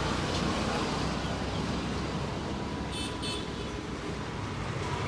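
Street traffic noise, a steady rumble and hiss of passing vehicles, with two short high-pitched toots about three seconds in.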